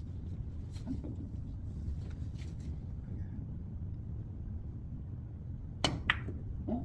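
Two sharp clacks of carom billiard balls striking each other, about a quarter second apart, over a low steady room hum.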